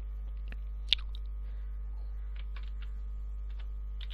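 Computer keyboard being typed on: scattered light key clicks, one sharper click about a second in, and a quicker run of keystrokes near the end, over a steady low hum.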